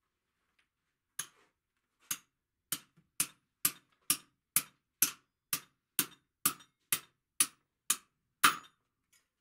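Blacksmith's hand hammer striking a chisel on the anvil: about fifteen sharp, ringing metal blows, roughly two a second, starting about a second in, with the last blow the loudest. The chisel is cutting a small decorative line into the iron trivet.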